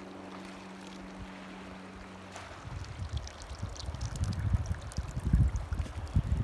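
Water poured from a plastic bucket into a hollow in wet sand, glugging and splashing unevenly from about two and a half seconds in. Before the pour there is a steady low hum.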